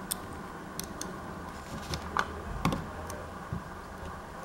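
Irregular small clicks and taps of a Ulefone Armor X3 smartphone's screen assembly and housing being handled and pressed together by hand, with two louder clicks around the middle.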